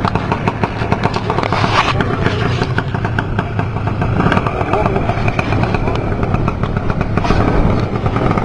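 180 cc dragster scooter engine revving hard during a burnout, with its rear tyre spinning against a wooden board. Fast, even engine pulses run without a break.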